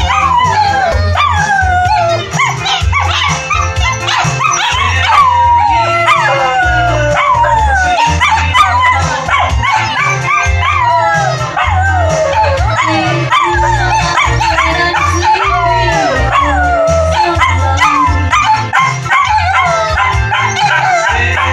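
Dog howling and yipping in a long run of short, falling cries, the dog's 'singing', over background music.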